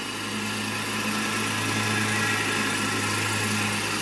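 A parked vehicle's engine idling steadily, heard from inside the cabin: a constant hum with an even hiss over it.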